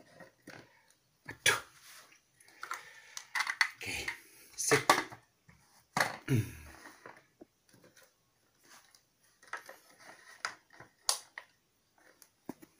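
Plastic blender jar and lid being handled and set on the blender base, with irregular knocks, clicks and scrapes; the loudest thumps come about a second and a half in, around five and six seconds in, and near the end. The motor is not running.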